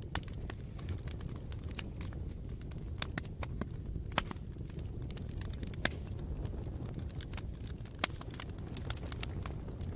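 Campfire crackling: irregular sharp pops and snaps over a steady low rumble. The loudest snaps come about four, six and eight seconds in.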